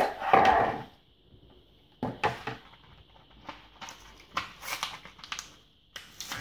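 Scattered clicks and crinkles of a plastic blister pack of grow-animal capsules being handled as a capsule is worked out of it, with a louder rustle right at the start.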